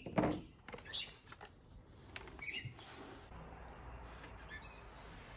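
Songbirds chirping in the background, a handful of short high calls, some gliding down in pitch. Near the start there is a louder thump and handling noise.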